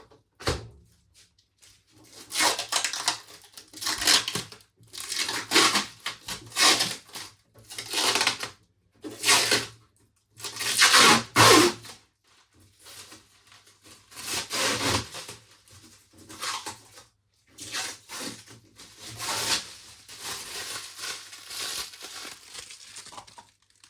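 Protective plastic film being peeled and torn off a new tumble dryer's door: a series of irregular tearing, crinkling pulls, the loudest about halfway through.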